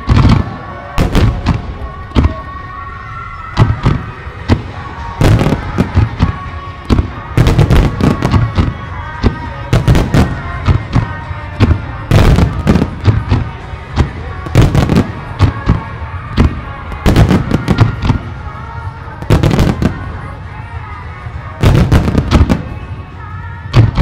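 Aerial fireworks shells bursting in quick succession: dozens of sharp bangs, some bunched into rapid clusters, over music played for the show.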